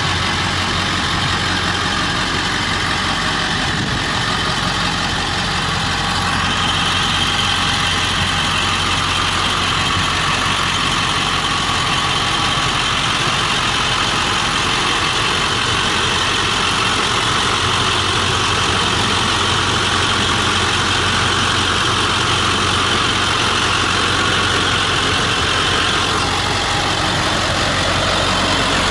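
A 1999 Ford F250's 7.3-litre Power Stroke V8 turbo-diesel idling steadily.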